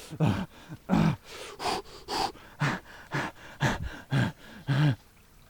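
A man's short grunts and sharp breaths, about two a second, from the shock of standing in very cold water.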